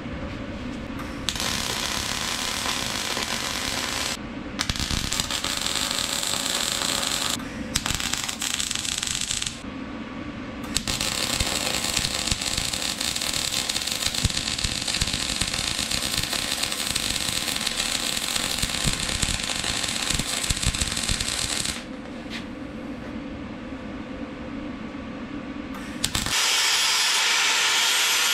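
MIG welder laying weld beads on the steel frame: the arc's steady crackle and sizzle comes in four runs with short pauses between, the longest about ten seconds. Near the end a louder, different steady hiss takes over.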